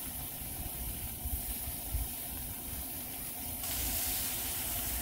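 Thinly sliced marinated ribeye sizzling and steaming on a hot gas flat-top griddle, a steady hiss that grows louder about three and a half seconds in, with a low rumble underneath.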